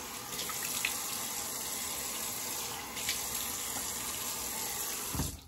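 Bathroom sink faucet running in a steady stream while rinsing off after a shave, shut off suddenly near the end.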